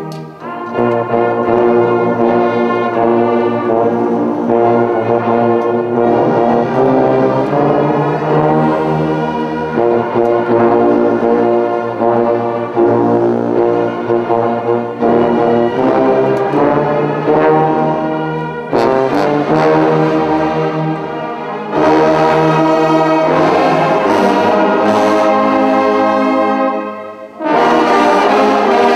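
A large brass band of trombones, sousaphones and other brass plays full held chords in long phrases, breaking off briefly near the end and coming straight back in.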